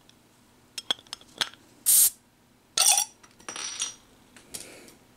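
Metal crown cap being opened off a glass bottle of carbonated soda. There are a few light metal clicks, then a short hiss of escaping gas about two seconds in, then more metal clinks.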